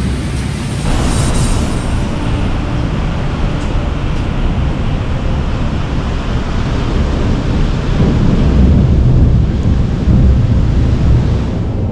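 Severe thunderstorm: a continuous heavy rumble of wind and thunder, swelling louder about eight seconds in.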